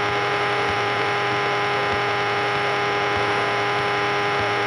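Steady droning hum over a layer of hiss on a Cessna 172's cockpit intercom audio feed, holding an even level with no change.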